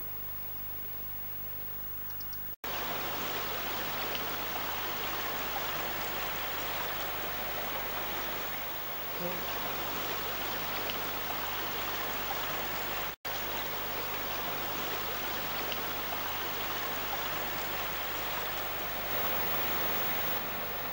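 Steady rush of flowing river water, cutting in abruptly a couple of seconds in after a quieter stretch with a low hum. The sound drops out for an instant about halfway through.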